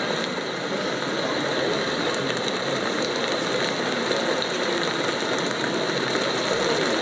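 Steady, indistinct background noise of an exhibition hall.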